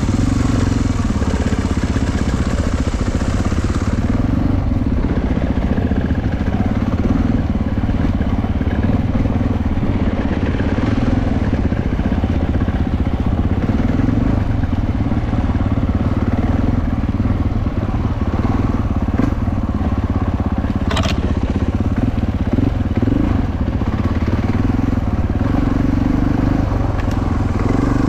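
KTM 450 four-stroke single-cylinder enduro motorcycle engine running steadily at trail pace. A single sharp knock comes about three-quarters of the way through.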